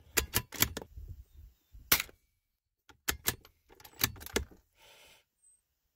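Sharp mechanical clicks and knocks from a varmint rifle being handled between shots, such as the bolt being worked. They come in quick clusters: four fast clicks in the first second, one near two seconds, and another run between three and four and a half seconds.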